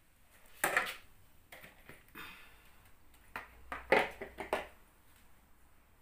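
A few sharp clinks and knocks of kitchen utensils and dishes being handled, the loudest about a second in and a quick cluster around four seconds in.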